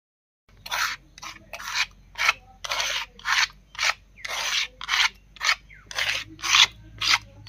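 Ground mustard paste being scraped off a stone grinding slab (sil), a hand-held stone or scraper dragged across the rough stone in short strokes, a little over two a second, starting about half a second in. The grinding is done and the paste is being gathered into a bowl.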